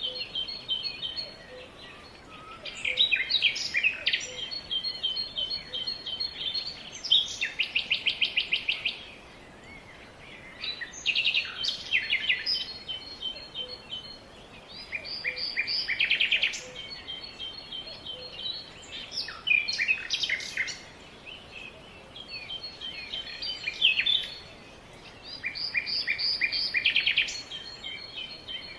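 Several birds chirping and singing in overlapping bouts of quick, rapidly repeated notes and trills that recur every few seconds.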